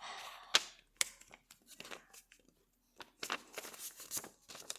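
Sheet of paper being unfolded, creased and refolded by hand: sharp crinkles and crisp creasing snaps, with a short pause in the middle.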